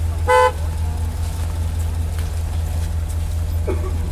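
A single short toot of a vehicle horn, one clear tone lasting about a quarter second, over a steady low hum.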